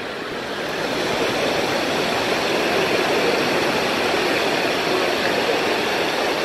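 Steady rush of water cascading over the rocks of a waterfall.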